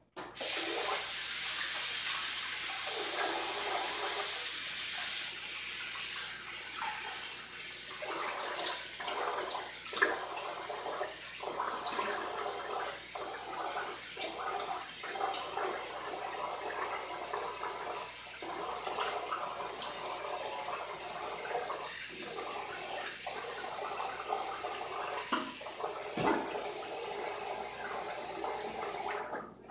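Bathroom tap running into the sink while water is splashed on the face to rinse off shaving cream midway through a shave, the flow broken by short gaps and stopping abruptly near the end.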